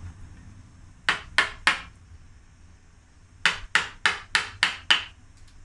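Hammer blows on wood while broken wood is chipped out of an elm trunk: three quick blows about a second in, then after a pause six more at about three a second.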